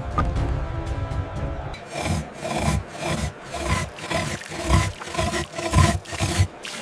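A long toothed saw rasps back and forth through a granite block in heavy, rhythmic strokes, about two a second, with sand being poured into the cut as an abrasive. The first second and a half is music with held tones before the sawing starts.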